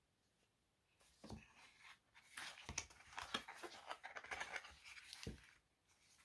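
Packaging being handled during unboxing: soft rustling of paper and packing material for a few seconds, with three light knocks as items are set down.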